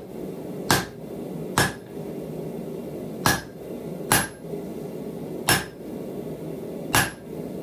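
Hand hammer striking red-hot steel held on the edge of an anvil: six blows at uneven spacing, each with a short metallic ring. The smith is chamfering and seating the brow ridge of a forged animal head.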